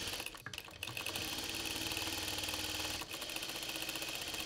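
Single-needle industrial sewing machine running steadily at speed, making a fast, even chatter of needle strokes as it stitches a satin ribbon through a loop folder presser foot. There is a brief dip about three seconds in.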